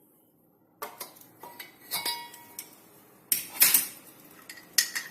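A spoon stirring milk in a cup, clinking and scraping against the rim and sides. It starts about a second in as a run of ringing clinks, loudest a little past the middle.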